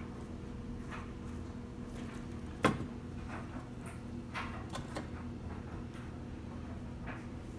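A few light taps and one sharp knock about two and a half seconds in, over a steady low hum.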